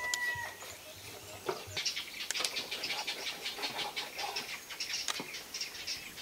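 Chef's knife sawing down through the charred, crusty outside of a grilled ostrich fillet onto a wooden cutting board, a string of short crisp crackles and scrapes. A bird's whistled call fades out about half a second in.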